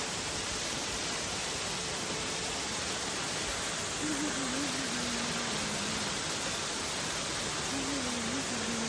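Steady rushing of a waterfall: an even hiss that does not let up, with a faint wavering low hum twice, about four seconds in and near the end.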